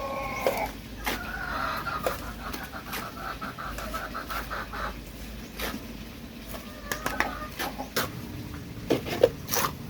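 Chicken clucking in a quick run of repeated notes, with scattered knocks and clicks, the sharpest near the end.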